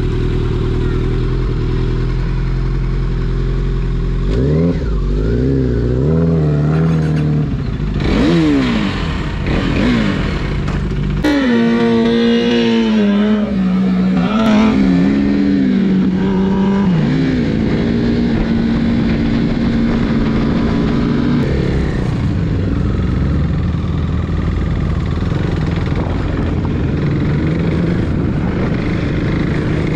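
Motorcycle engines pulling away and accelerating through the gears: the engine pitch climbs in a series of rises, with a sudden jump about a third of the way in. The rest is a steadier engine drone while riding.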